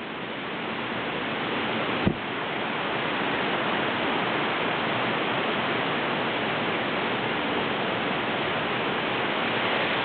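Waterfall rushing, a steady roar of falling water that grows louder over the first few seconds and then holds, with one brief knock about two seconds in.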